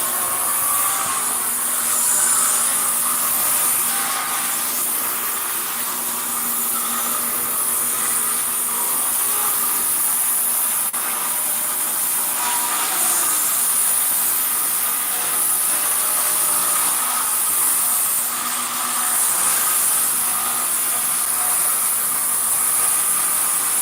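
A woodworking power tool running steadily as it cuts or works wood, a continuous high-pitched machine noise with no pauses.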